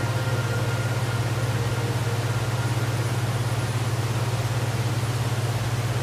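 Waterfall: a steady rush of falling water over a strong, deep low rumble that does not change.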